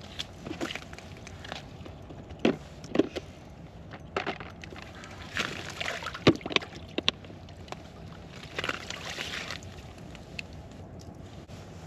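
Water sloshing in an ice-fishing hole with scattered sharp knocks and scrapes on the ice, as a walleye is pulled up through the hole and landed.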